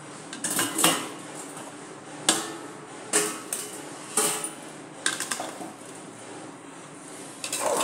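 Stainless-steel kitchenware clanking as a steel plate used as a lid is lifted off a steel cooking pot with a metal ladle in it: about half a dozen sharp metallic clinks spread over several seconds.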